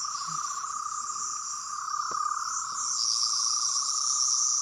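Electronic sonic screwdriver sound effect: a continuous, fast-warbling whine with a high hiss above it, swelling slightly in the second half.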